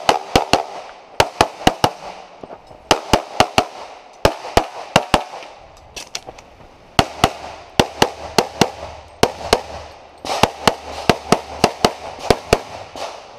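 Rapid strings of pistol shots from an STI Competitor .38 Super open-division race gun with a compensator. The shots come in quick bursts of several each, with short pauses between the strings.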